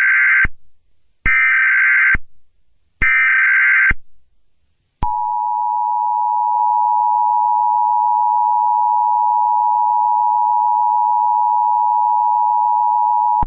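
Emergency Alert System tones: three short bursts of high digital screeching, the SAME header data, each about a second long. About five seconds in, the steady two-tone EAS attention signal begins and holds.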